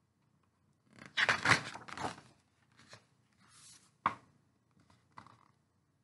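Pages of a large hardcover picture book being turned: paper swishing and rustling for about a second, then softer rustles and a sharp tap of the page or hands on the book about four seconds in.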